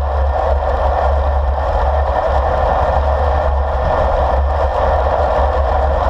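Wind buffeting the microphone of a handlebar-mounted action camera on a road bike in motion: a steady, heavy rumble with a rushing hiss over it.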